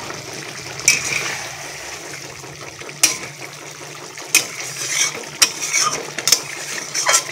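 Flat metal spatula scraping and clinking against an aluminium kadai while turning koi fish in a simmering spiced gravy. There are about eight sharp clinks at irregular intervals over a steady hiss, bunched closer together in the second half.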